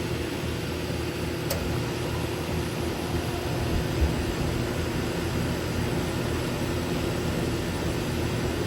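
Brand-new Goodman GSXM4 2-ton central air conditioner running steadily just after its first startup: a constant low hum from the compressor with the rushing air noise of the condenser fan.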